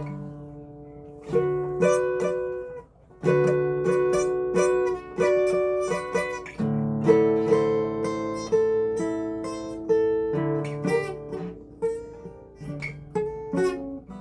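Acoustic guitar being strummed, one chord at a time, each chord left to ring out, with a short break about three seconds in.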